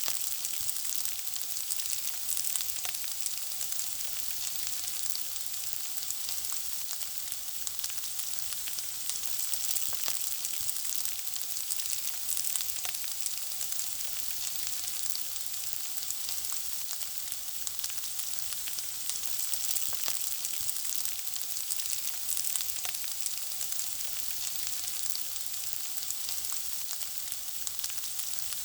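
Food frying in hot oil: a steady sizzle with constant small pops and crackles.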